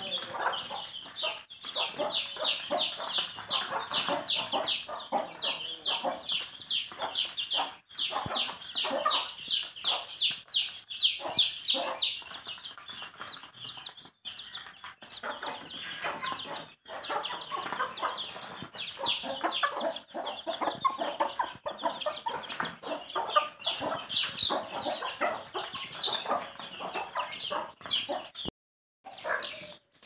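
A brood of young chicks peeping almost without pause: short, high, falling cheeps, several a second.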